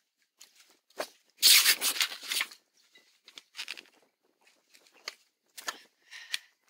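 Rustling and rubbing noise on a phone's microphone as it is handled and moved about, in irregular bursts, the loudest about a second and a half in.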